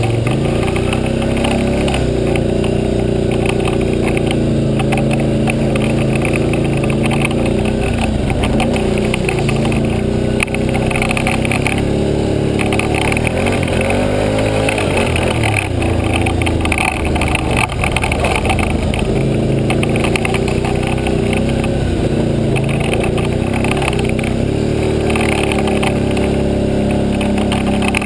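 ATV engine running under riding load on a rough dirt trail, its pitch rising and falling with throttle changes, heaviest in the middle stretch.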